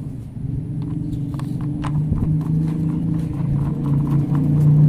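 Light plastic clicks and ticks as a wheel is fitted and screwed onto a plastic toy school bus with a toy screwdriver, over a steady low hum.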